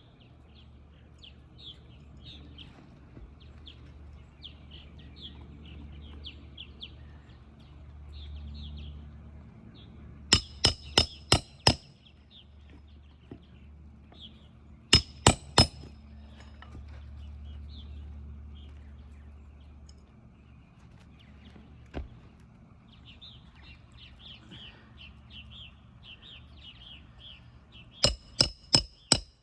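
Hammer driving roofing nails into an asphalt shingle: quick runs of sharp, ringing strikes. There is a run of about five a third of the way in, three or four around halfway, a single strike later, and another run near the end.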